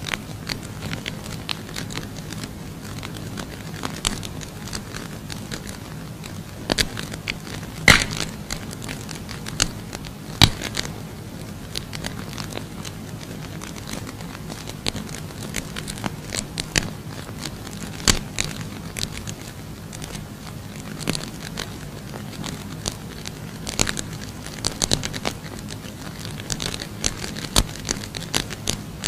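Safety matches burning, crackling irregularly with a few louder snaps, over a low steady hum.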